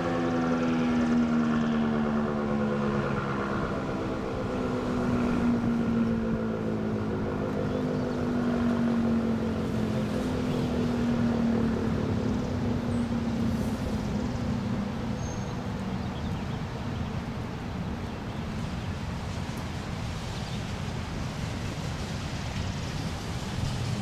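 ACA P-15 Penetrator outdoor warning siren winding down: its tone slowly falls in pitch and swells and fades as the rotating horn sweeps past. It dies away about two-thirds of the way through, leaving wind noise.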